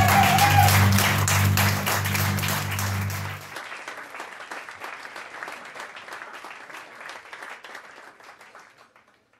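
Audience applauding, over a low held music note that stops about three and a half seconds in; the applause then carries on more faintly and fades away.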